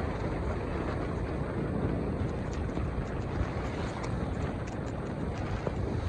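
Steady low rumbling outdoor noise with a few faint, sharp high ticks scattered through it.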